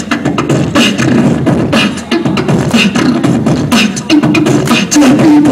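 Beatboxer performing into a microphone: rapid mouth-made kick, snare and hi-hat hits in a dense rhythm, with a hummed tone joining the beat near the end.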